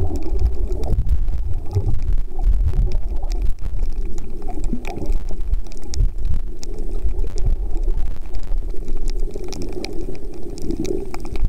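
Muffled underwater rumble and water noise heard through a submerged camera's housing, swelling and easing every few seconds, with scattered faint sharp clicks.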